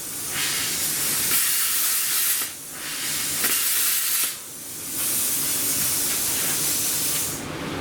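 Loud hissing in long bursts of one and a half to two and a half seconds, with short breaks about a third of a second in, two and a half seconds in, and four and a half seconds in; the hiss fades out shortly before the end.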